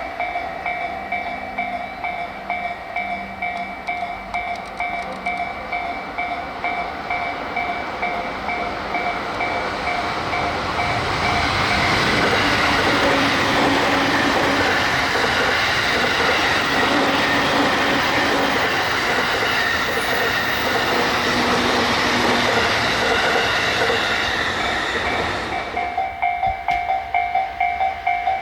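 Japanese level-crossing warning bell clanging in a quick even beat while a train approaches and runs over the crossing. The train's rumble and wheel clatter build up about ten seconds in, stay loud for some thirteen seconds, then cut off suddenly, leaving the bell ringing on alone.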